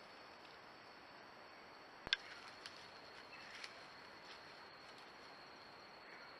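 Faint night-time ambience from a camera trap: a steady hiss with a thin, steady high tone, broken by one sharp click about two seconds in and a few fainter ticks after it.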